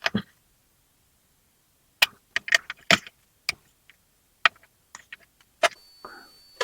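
Irregular sharp clicks and light metallic taps from a screwdriver working on the sheet-metal case of a CD drive as it is taken apart, in small clusters with short pauses between.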